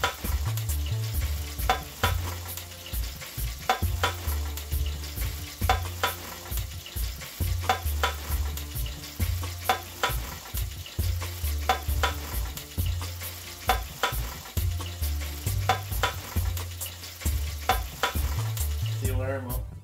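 Hot oil in a deep fryer sizzling and crackling steadily, under background music with a repeating bass line and a steady beat.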